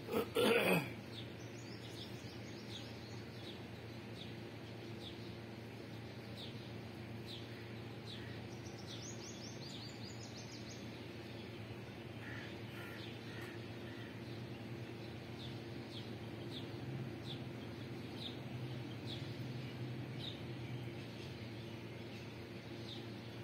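Chicks peeping, short high peeps repeating about every 0.7 seconds over a steady low background hum. A brief loud falling sound comes right at the start, and a quick twittering of higher notes about eight to ten seconds in.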